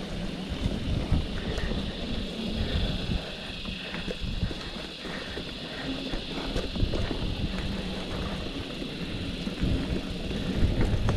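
Wind buffeting the microphone while a mountain bike rolls along a trail, with scattered small clicks and knocks from the bike and the ground.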